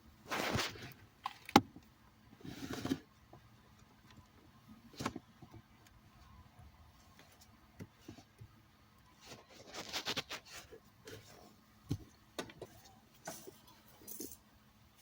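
Intermittent handling noises of cabin air filter work behind a car's glove box: short scraping and rustling bursts, with several sharp plastic clicks in between.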